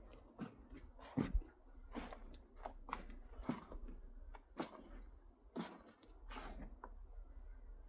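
Hands rummaging through loose potting compost to pick out potatoes: a dozen or so short, irregular rustles and scrapes.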